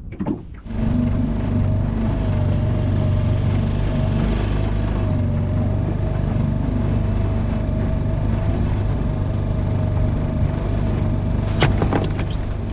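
Small boat's outboard motor running steadily at an even speed as the boat moves to a new fishing spot, easing off near the end with a couple of knocks.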